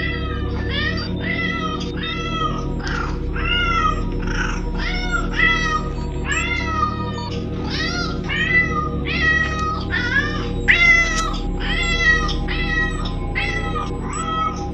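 A cat meowing over and over in quick, even succession, about two meows a second, each rising then falling in pitch, over a low steady music drone.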